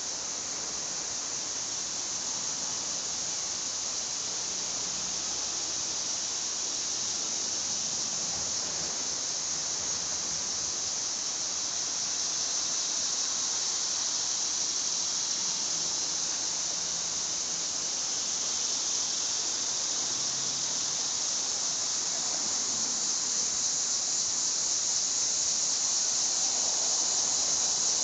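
A chorus of several Tibicen (Neotibicen) cicada species singing in the trees: a loud, steady, high-pitched buzzing drone that grows slightly louder over the stretch.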